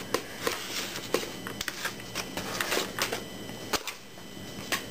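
Irregular light clicks and knocks, about two or three a second, from hands working on a portable transistor radio's knob and chassis during disassembly.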